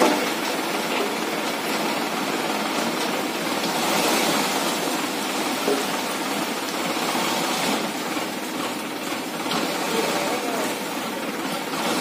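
Steady rushing of soil pouring out of a raised tipping tractor trolley, with the diesel engine of a Sonalika DI 47 RX tractor running.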